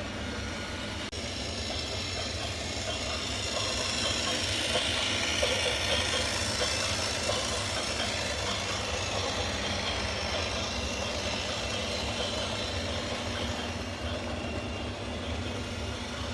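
Train running along the rails with a steady rumble and clatter of the wagons, growing louder a few seconds in and then holding steady.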